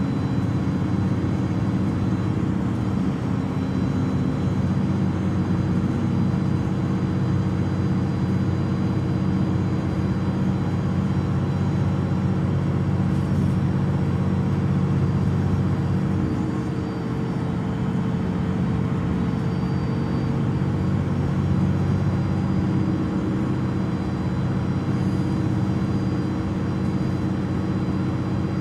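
MAN Lion's City Euro 6 city bus with its D0836 LOH six-cylinder diesel idling steadily at a standstill.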